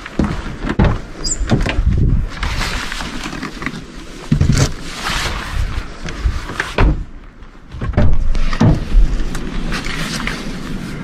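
Car door unlatched and opened, followed by irregular knocks, thumps and rustling as gear is handled inside the vehicle.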